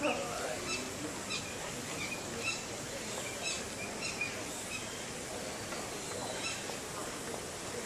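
Short high chirps repeating about every half second over a steady outdoor hum.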